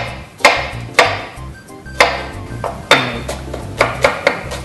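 Chef's knife chopping an onion on a wooden cutting board: sharp knocks of the blade on the board, about eight of them, coming quicker near the end, over background music.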